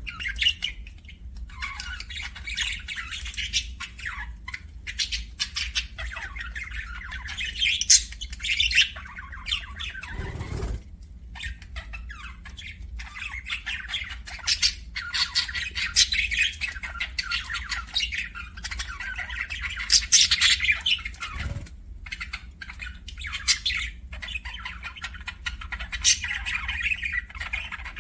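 Budgerigars chattering, chirping and squawking continuously, with busy, rapid calls.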